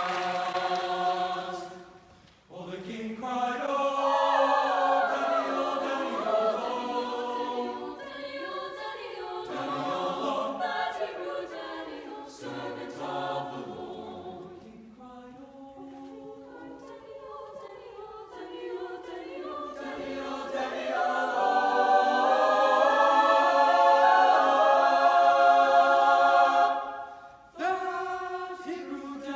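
High school mixed choir singing a cappella, in sustained phrases with brief breaks about two seconds in and near the end. A soft passage in the middle builds to a loud, full chord near the end.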